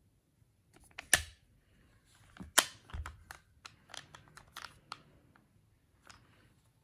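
Small plastic mini-lipstick palette case being handled and its mirrored lid closed: a run of sharp plastic clicks and taps, the two loudest about one and two and a half seconds in.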